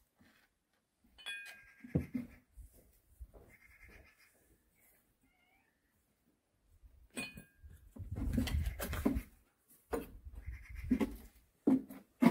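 Porcelain teacups and teapot clinking as they are set out on a table, each clink ringing briefly, about a second in and again about seven seconds in. A domestic animal calls, and there is a louder muffled stretch around eight seconds in.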